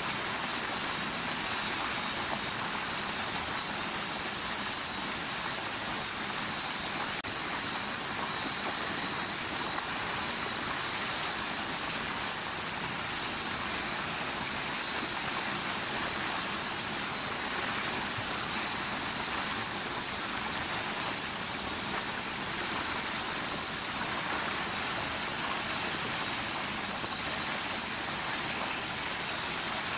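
Cicadas droning in a steady, high-pitched summer chorus.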